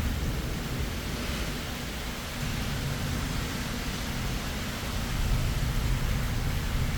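Steady rain falling, an even hiss, over a low rumble that swells about five seconds in.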